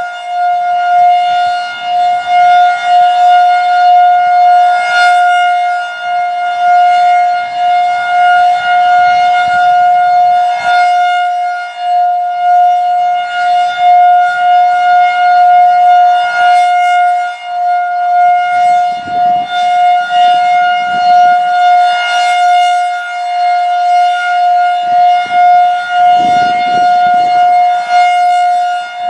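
Federal Signal 2001-DC rotating outdoor warning siren sounding a full alert: one steady, high, unbroken wail that swells and fades about every six seconds as the horn sweeps past. Brief low rumbles come twice in the second half.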